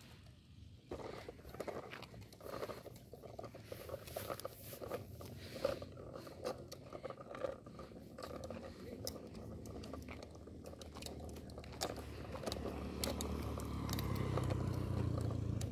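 Hard plastic wheels of a toddler's ride-on toy rolling over rough asphalt, a crackling scrape with many small clicks. From about twelve seconds in a motorcycle engine hums and grows louder, the loudest sound near the end.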